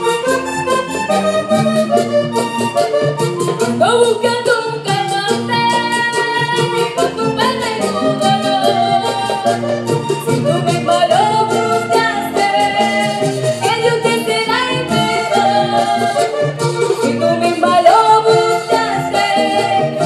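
Live vallenato music: a woman singing over a diatonic button accordion, with caja drum and guacharaca scraper keeping a steady beat.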